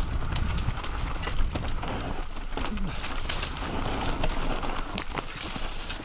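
Mountain bike descending a rough trail: tyres running over dirt and rock, with many quick clicks and rattles from the chain and frame, over a low rumble of wind on the microphone.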